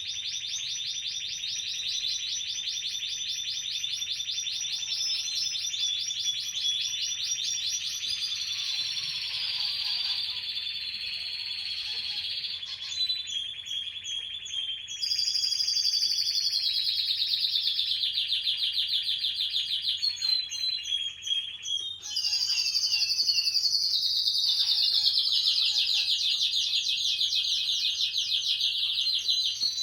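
Canary singing in long, fast, high trills of rapidly repeated notes, switching to a new trill type every few seconds, with brief pauses about a third and two-thirds of the way through.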